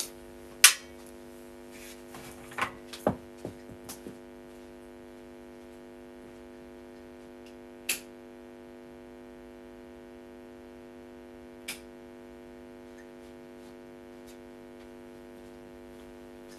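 A steady electrical hum under scattered sharp knocks and clatters. The loudest knock comes about half a second in, several more follow over the next few seconds, and two single knocks come later, far apart.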